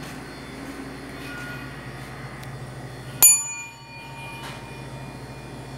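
One sharp metallic ring about three seconds in, struck once and dying away over about a second, over the steady hum of kitchen ventilation.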